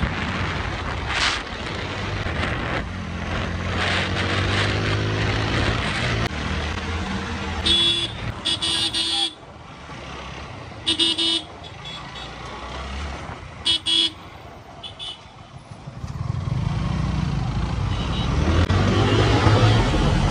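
Motorcycle engine running and revving up through the gears with wind rush on the microphone. In the middle, horns honk in short blasts, several times, while the engine is quieter. Near the end the engine revs up again.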